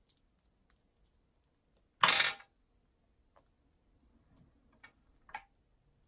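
Amazon parrots' beaks clicking and tapping on plastic bead toys, a run of scattered light clicks. One much louder noisy burst, lasting about half a second, comes about two seconds in.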